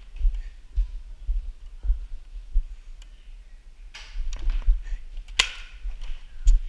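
Low, irregular thumps of footsteps and knocks on a body-worn camera, with a brief rustle about four seconds in and one sharp crack a little past five seconds in.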